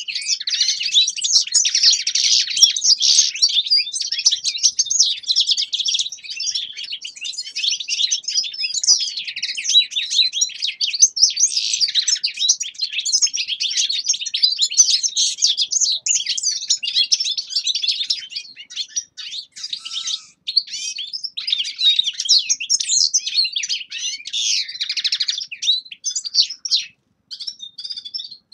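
Caged finches, European goldfinches among them, singing a continuous fast, high-pitched twittering song with hardly a pause; it breaks into short gaps near the end.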